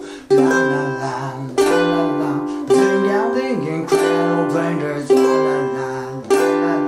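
G-Labo thin-bodied ukulele strumming slow C and G7 chords, six single strums about a second apart, each left to ring and fade. A man sings a wordless 'la la la' line over it.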